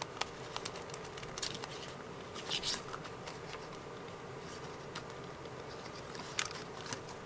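Faint rustling of a sheet of book paper and scattered light clicks and taps as a handheld plastic circle paper punch is slid into position under it, over a faint steady hum.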